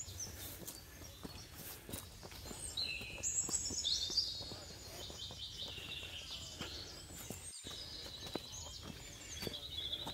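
Footsteps crunching on a dirt and rock trail, with songbirds singing several falling, trilled phrases over a low steady rumble.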